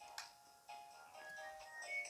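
Nokia 2600 mobile phone ringtone playing: an electronic melody of short, quickly changing notes with several sounding together and a sharp percussive click near the start, all thin with no bass.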